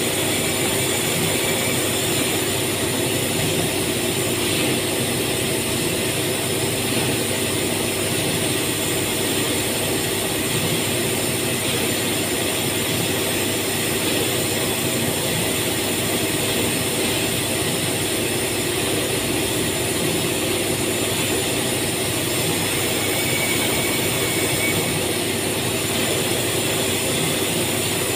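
Factory machinery running steadily: a constant drone with several held tones over an even hiss.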